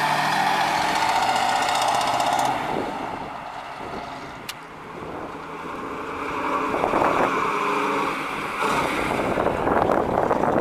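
1970 Chevrolet Camaro Z/28's 350 LT1 V8 running loud as the car passes close by, then fading for a couple of seconds as it moves away. About halfway through the engine grows loud again and revs hard as the car comes back and accelerates past.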